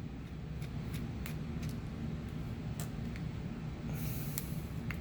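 Small scattered clicks and ticks of tools and small parts being handled while an RC truck's portal axle is taken apart, with a brief rustle about four seconds in, over a steady low hum.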